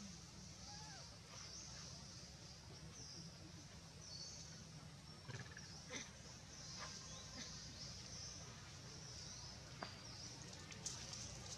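Faint outdoor ambience: high-pitched chirping that pulses about once a second, with a few sharp clicks and rustles of dry leaves near the middle and toward the end, where a baby macaque moves on leaf litter.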